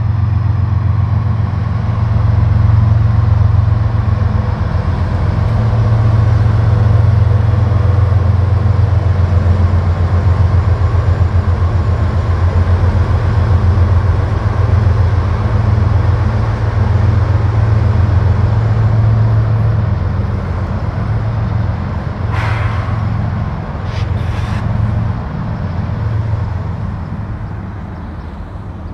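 Diesel engines of CSX GE freight locomotives working slowly past over a viaduct at about 10 mph: a steady, deep engine drone that eases off near the end as the units go by. About two seconds apart near the end come two short, sharp, higher-pitched bursts of noise.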